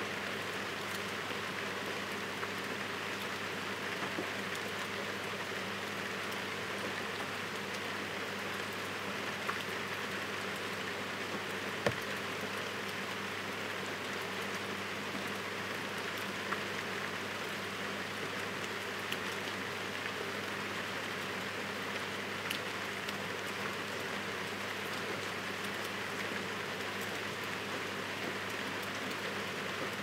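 Heavy rain falling steadily, with scattered single drops ticking sharply above the hiss, the loudest about twelve seconds in.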